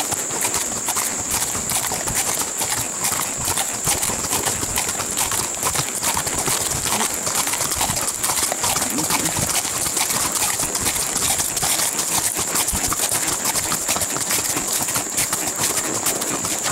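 Horses' hooves clip-clopping on a gravel road, a steady run of hoofbeats from two ridden horses, over a steady high-pitched hum.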